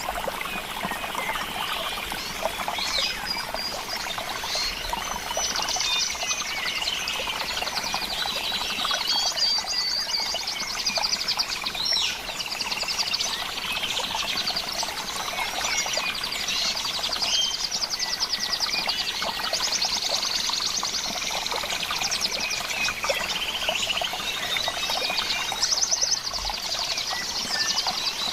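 Several birds singing and calling at once, a dense chorus of chirps and rapid trills, over a steady trickle of running water.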